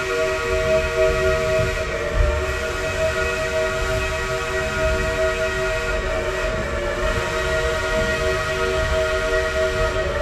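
Steam locomotive's chime whistle sounding one long, steady chord of several notes, over the low rumble of the train rolling slowly.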